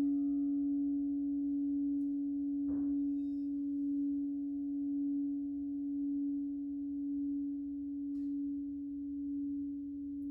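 Crystal singing bowl sounding one pure, sustained low tone that holds at a nearly steady level with a slow waver, as if kept singing continuously. A faint tap comes about three seconds in.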